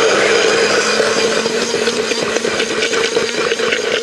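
Stick blender running steadily in a tall jug, blitzing the egg base for a whole-egg mayonnaise: a steady motor hum with the churning of the thick mixture.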